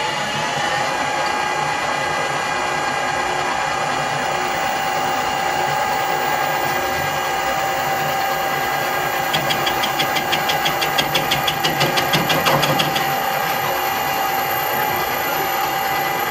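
Colchester Bantam metal lathe running steadily with a held, whining gear hum, turning a rough steel bar. About ten seconds in, a fast run of sharp ticks lasts a few seconds.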